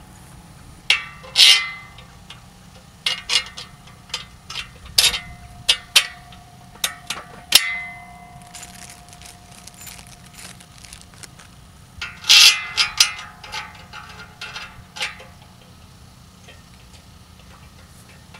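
Steel solar-tracker bracket parts and a long threaded bolt clanking and clinking as they are handled and fitted. There are about a dozen sharp metallic knocks in two clusters, the first few seconds in and again about twelve seconds in, and some ring briefly.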